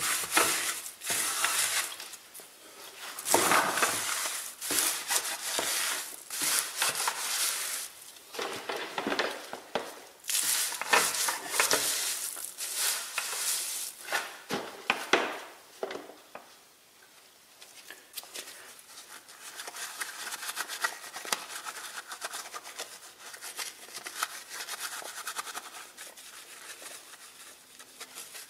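A wet bristle wheel brush scrubbing a soapy alloy wheel: irregular swishing, rubbing strokes through the foam. After about sixteen seconds the strokes stop and only a fainter, softer scrubbing texture remains.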